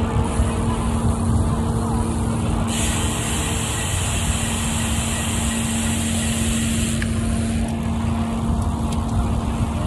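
Steady road and wind noise of moving along a road, with a steady low hum under it. A band of hiss comes in about three seconds in and drops away about four seconds later.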